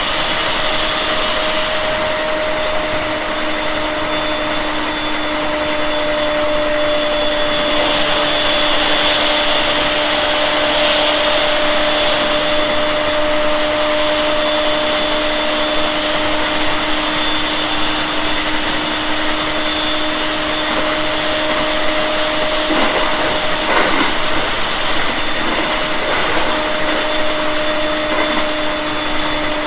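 Running sound heard inside a JR East 701 series 5500 subseries electric train: the steady rush of wheels on rail with a hum held at one pitch as the train runs at constant speed, and a few short knocks about three quarters of the way through.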